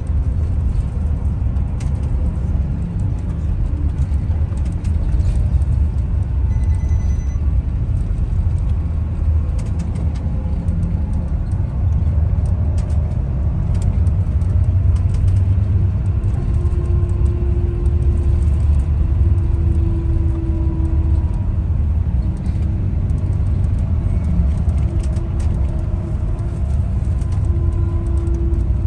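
Steady low rumble of a bus's engine and road noise heard from inside the passenger cabin while it drives along at speed, with a faint hum coming and going in the second half.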